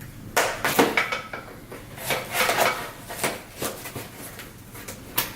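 Bike rack parts and packaging being handled: a string of irregular clinks, knocks and scrapes.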